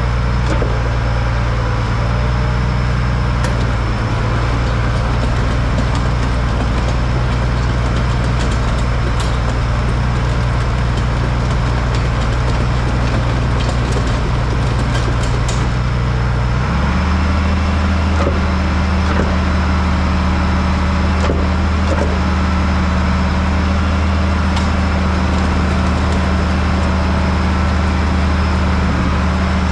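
Large farm machine's engine running steadily with a deep, even hum. About 17 seconds in, its note changes abruptly as the engine speed shifts.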